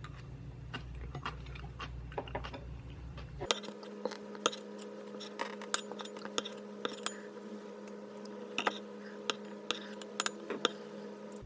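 Irregular sharp clinks of a spoon against a bowl while eating bibimbap, a few soft ones at first and then louder, more frequent ones.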